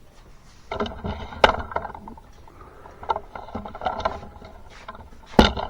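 Hard objects being handled: irregular rattling and clattering, with two sharp knocks, one about a second and a half in and one near the end.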